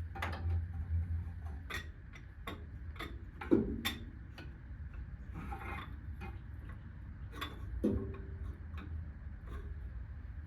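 Hand ratchet clicking in irregular strokes on a front-suspension nut, with louder metal knocks about three and a half and eight seconds in, over a steady low hum.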